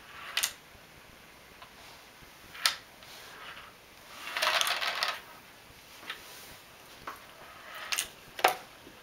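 Scattered sharp clicks and knocks of hard objects being handled, with a short rattle about four to five seconds in.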